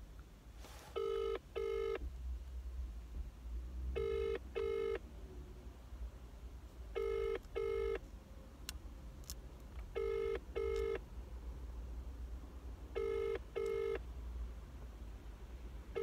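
British telephone ringback tone heard through a smartphone's speakerphone: the double 'ring-ring' repeats about every three seconds, five times. It is the sign that the number is ringing at the other end and has not yet been answered.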